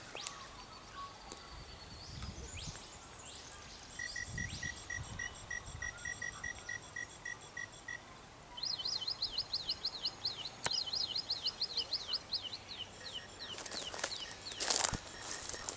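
Synthetic electronic bird and insect calls from the installation's solar-powered speaker horns, played by cheap digital sound chips. A steady electronic chirp repeats a few times a second, then a fast trill of rapidly repeated pitch sweeps follows, sounding artificial and beep-like.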